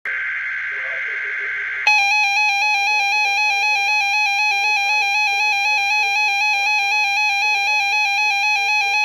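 A short burst of SAME digital header data, a buzzy warble, then a loud electronic alert tone that flips rapidly back and forth between two pitches, like a weather radio receiver's alarm.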